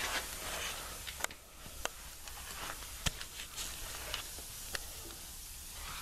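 Steady low hiss with a handful of faint, sharp clicks spread through it: handling noise from a handheld camera being moved around.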